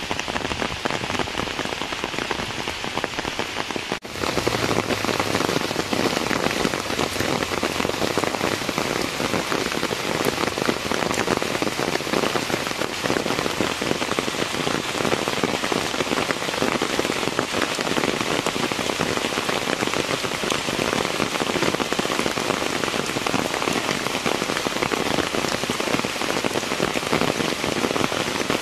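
Heavy monsoon rain pouring down steadily, a dense hiss of drops on the ground and leaves. It drops out briefly about four seconds in and comes back slightly louder.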